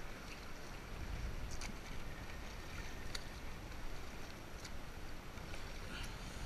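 Double-bladed kayak paddle strokes in choppy sea water, a light splash about every second and a half, over steady rushing water and wind.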